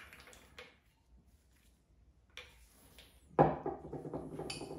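Hand grease gun being worked to fill a bicycle pedal body with grease: short noisy strokes at the start and again a little past two seconds in. About three and a half seconds in comes a sharp, loud knock as the metal grease gun is set down on a wooden table, followed by about a second of handling clatter.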